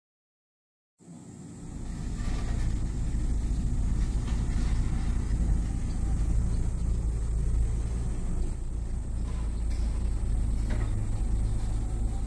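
Silence for about a second, then a steady low rumble of outdoor background noise fades in and holds, with a faint hiss and a few light ticks.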